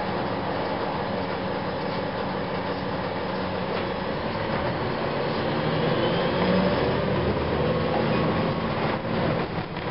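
Cabin sound of a 2004 Gillig Phantom transit bus under way: its Cummins ISM diesel and Voith automatic transmission running together with a steady whining howl from the transmission. The pitch and loudness rise a little about halfway through as the bus picks up speed, then dip briefly with a few rattles near the end.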